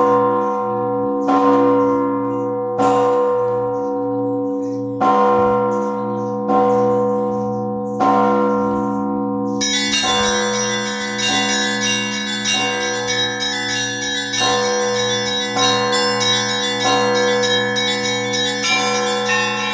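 Russian bell ringing (zvon) in a seven-beat rhythm. Large and middle bells ring out with strong strokes about every one and a half seconds, their tones ringing on beneath. About ten seconds in, the small high bells join with rapid, dense chiming over them.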